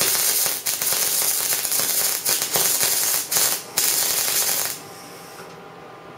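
MIG welding arc crackling steadily with a few brief breaks as the wire feeds, then cutting off about five seconds in when the trigger is released.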